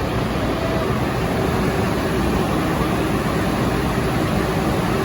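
Steady mechanical din of a machine shop with running machinery, at an even level with a faint steady hum.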